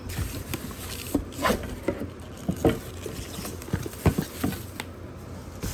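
Cardboard box and packaging being handled as the humidifier is lifted out: irregular knocks, taps and rustles, a few of them sharper.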